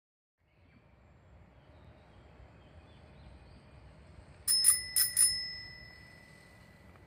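Bicycle bell rung four times in quick succession, in two pairs, the last ring fading out over about two seconds.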